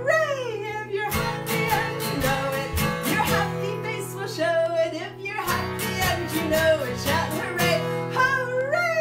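Acoustic guitar strummed in a steady rhythm under a woman singing a children's song, her voice sliding up and down in shouted calls of "hooray".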